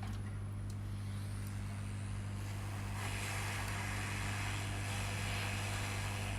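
Hot air rework station blowing: a steady low electrical hum, joined about three seconds in by a steady hiss of air from the nozzle as it heats the chip.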